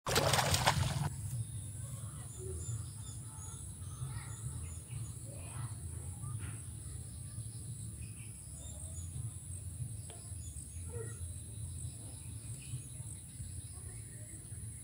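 A hooked catfish splashing and thrashing at the surface of a small muddy pond, loud for about the first second. Then a steady high insect drone with scattered bird chirps over a low rumble.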